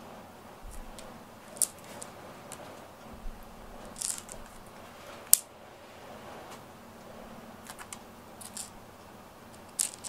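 A cat licking and grooming its fur: a run of irregular short clicks and ticks, the loudest about five seconds in. Near the end comes a quick cluster of clicks as it paws at a cord on the wooden floor.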